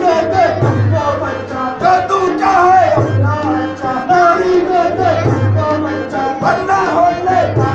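Ramlila stage music: a singer's melodic line over instrumental accompaniment, with a low note that swells and fades every second or so.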